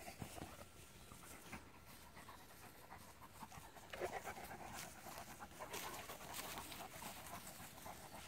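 Central Asian Shepherd dog (alabai) panting, faint and breathy.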